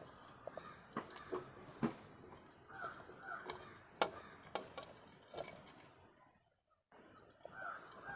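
Faint, scattered metallic clicks and taps of a Yamaha RX100 clutch cable and its end lock being handled and seated in the clutch cover, about half a dozen light clicks spread through the first five seconds.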